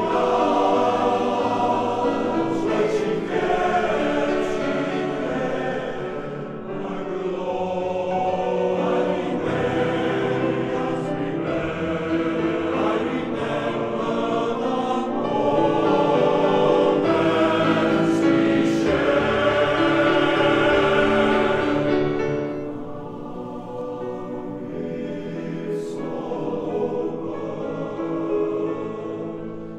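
Welsh male voice choir singing a slow piece in sustained harmony, growing softer about three quarters of the way through.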